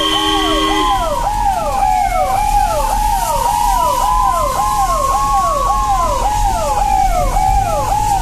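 Ambulance siren running continuously: a fast yelp whose pitch falls about twice a second, layered over a slower wail that rises and falls over several seconds. A steady horn-like blare cuts off about a second in.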